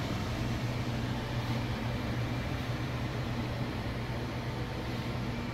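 Steady low mechanical hum with a soft, even hiss.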